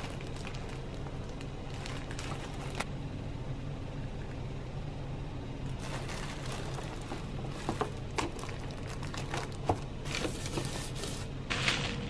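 Plastic wrapping and packing bags rustling and crinkling as items are pulled from a cardboard box, in several short spells: near the start, around the middle and again toward the end. A steady low hum runs underneath.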